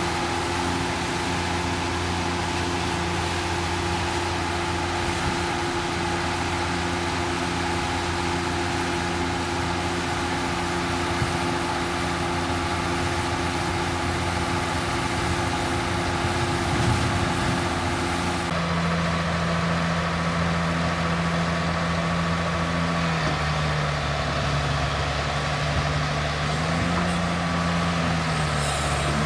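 Diesel engine of a Caterpillar tracked excavator running steadily. About two-thirds of the way through its note changes, then dips and rises a few times near the end as the engine takes hydraulic load moving the boom.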